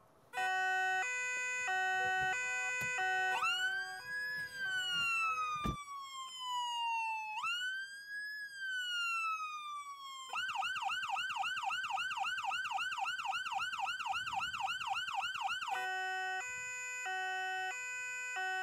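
Electronic siren of a Volvo police car cycling through its modes. It opens with stepped hi-lo tones, then gives two long wails that rise quickly and slide slowly down. About ten seconds in it switches to a fast yelp of about five cycles a second for some five seconds, then returns to the hi-lo tones.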